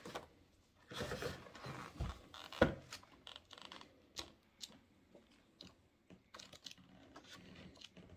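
Pages of a large hardcover book being turned and riffled by hand: paper rustling and flapping with short clicks throughout, and a couple of soft thumps around two seconds in, the second a little louder.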